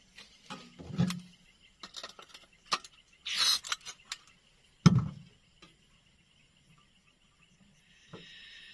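A butane canister being handled and fitted into a portable cassette gas stove: clunks and knocks of the metal canister and stove, a brief hiss about three and a half seconds in, and a sharp knock about five seconds in. Near the end a steady gas hiss sets in as the burner is turned on.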